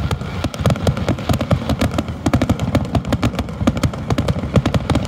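Aerial firework shells bursting in a rapid barrage: sharp bangs come several to a second, close together, with no let-up.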